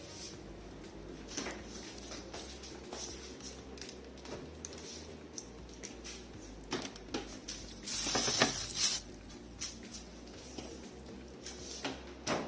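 Handling noises as a swing-top glass jar is put into a refrigerator: scattered small clicks and knocks, a louder clatter about eight seconds in as the jar goes onto a shelf, and the refrigerator door knocking shut near the end.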